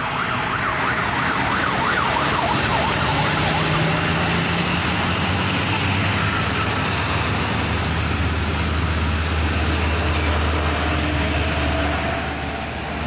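A siren-style bus horn warbles rapidly up and down for the first few seconds. Steady road noise and a heavy engine's low hum follow as coaches pass.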